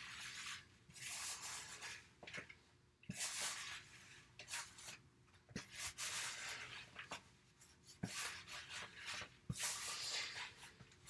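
A spoon stirring a thick, sticky dough of flour, brown sugar, egg and tea-soaked dried fruit in a plastic bowl: a run of scraping swishes, each about a second long, with a few light knocks against the bowl.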